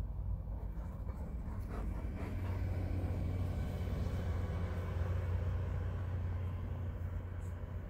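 A steady low rumble that grows slightly stronger about two seconds in.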